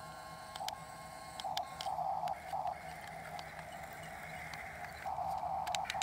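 Small electric motors and plastic gearboxes of a radio-controlled toy excavator whirring in short bursts as it drives and swings its boom, starting and stopping several times, with scattered clicks.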